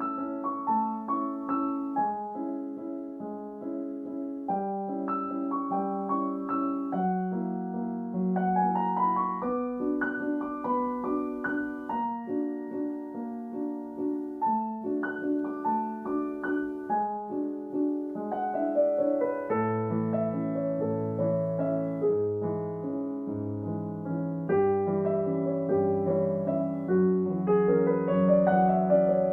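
Background piano music, a gentle piece of steady chords and melodic runs.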